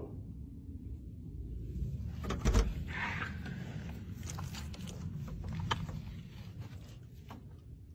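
A front door being unlatched and opened a crack: a few clicks and a knock about two and a half seconds in, over a steady low rumble.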